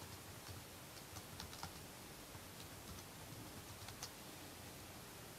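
Computer keyboard being typed on: faint, scattered keystrokes, a flurry in the first two seconds and a lone one about four seconds in, over a steady low hiss.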